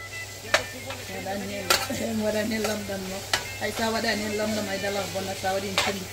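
Metal slotted spoon stirring sliced onions, peppers and tomatoes in a sizzling frying pan, with four sharp clinks of the spoon against the pan. A voice is faintly heard in the background.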